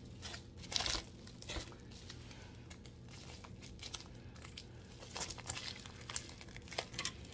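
Plastic mailer packaging crinkling and rustling as it is handled and picked open by hand, loudest about a second in, with a run of short, sharper crinkles near the end.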